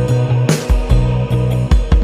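Background music with a steady beat: held bass notes and drum hits.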